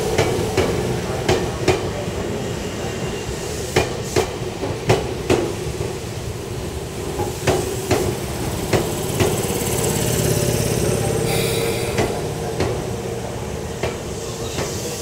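Izukyu 8000 series electric train moving slowly through the station: its wheels clack over rail joints and points, mostly in quick pairs about half a second apart, over a steady running hum. A short hiss comes about 11 seconds in.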